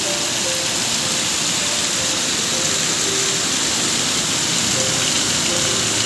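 Heavy rain falling steadily, a dense even hiss, with faint music notes playing softly under it.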